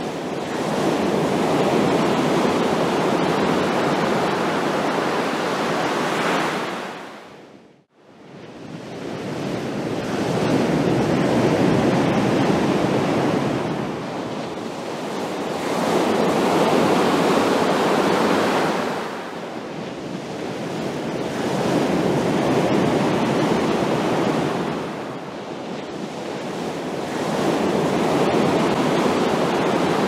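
Ocean waves crashing, the surf swelling and easing in a rolling rhythm about every five or six seconds. About eight seconds in, the sound fades almost to silence for a moment, then swells back.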